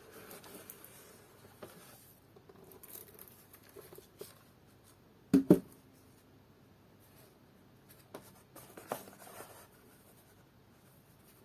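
Handling noises during an unboxing: soft rustling and scraping, with two sharp knocks in quick succession about halfway through and a few lighter clacks a little later.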